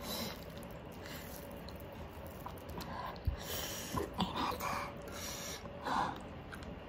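Close-miked eating sounds of a person chewing oven-baked pork: breathing and a few short, scattered mouth noises.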